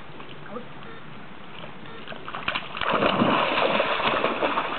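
A large dog bounding through shallow creek water, splashing loudly for about a second and a half from about three seconds in.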